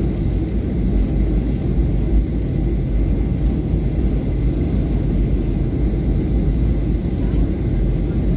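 Steady low rumble of a Boeing 737-800's CFM56-7B jet engines and the airflow over the airframe, heard from inside the passenger cabin in flight.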